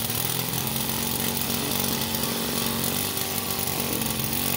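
Stirlingkit RW-BL1K miniature live-steam engine running steadily on steam, a fast even mechanical beat with a hiss.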